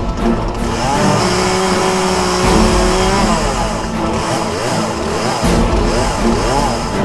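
Chainsaw cutting into a fallen tree trunk, its pitch rising and falling several times, with background music over it.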